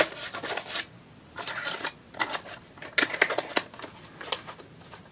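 Plastic packaging and small accessories being handled: short bursts of rustling and clicking, in several clusters a second or so apart.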